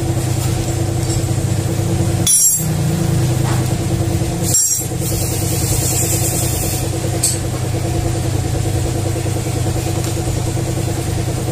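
An engine or motor runs steadily in the background with an even hum. Two short sharp clicks come about two seconds apart, and there is a brief high hiss around the middle.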